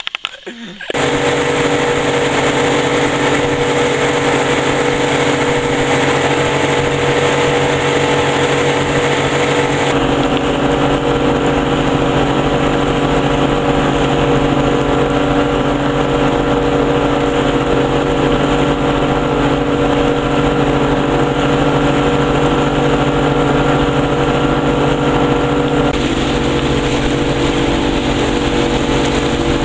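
Boat motor running steadily at cruising speed, heard from aboard, with the rush of water churned up in its wake. The drone changes slightly about ten seconds in and again near the end.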